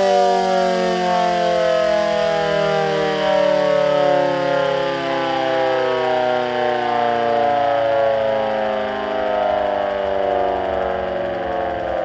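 GS CS-10V15QT civil defense siren winding down, its tone falling slowly and steadily in pitch. The siren's bearings are bad.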